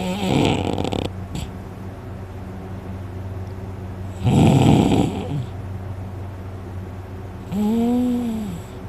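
A person snoring loudly in deep sleep: rasping snores several seconds apart, the last a pitched snore whose tone rises and then falls.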